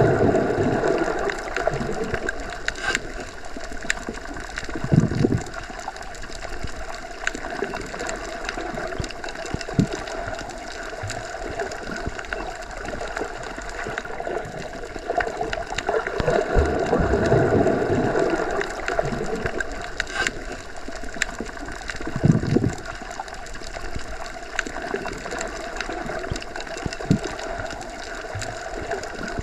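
Underwater water ambience: a continuous muffled wash with slow swells and gurgling, and two brief low surges about 5 and 22 seconds in.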